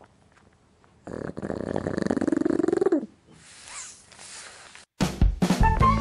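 Pug snoring: one long, loud snore about a second in whose pitch climbs steadily for two seconds and then drops away, followed by a fainter snuffling breath. Rock music with guitar starts suddenly near the end.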